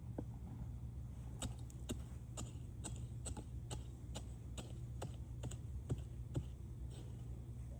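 A steady run of light clicks or taps, about two a second, over a low steady hum.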